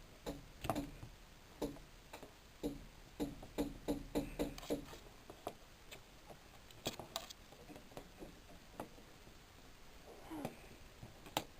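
Irregular light clicks and taps of small plastic parts being handled, as the doll's wings are taken off and the liquid glue is readied. The taps come thick and fast for the first five seconds, then only now and then.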